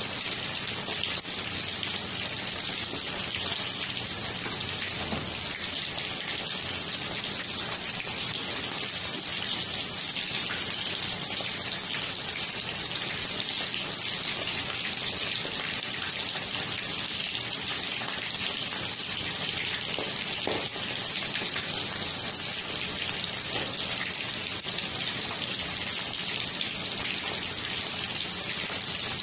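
Chicken pieces frying in hot oil in a pan: a steady sizzle with dense fine crackling and an occasional louder pop.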